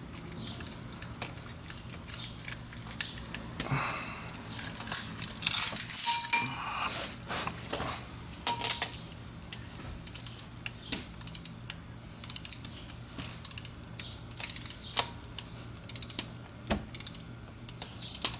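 Hand tools working bolts in sequence: clusters of rapid metallic clicks and clinks, with a busier stretch of clinking a few seconds in.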